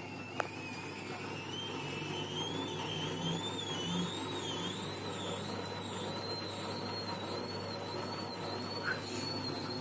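Washing machine spinning its drum at 400 rpm with a continuous high-pitched squeal that wavers up and down and slowly climbs in pitch, over the steady hum of the motor. The squeal began after the heating element was replaced; it is louder in spin than in wash, and the owner wonders whether something needs lubricating.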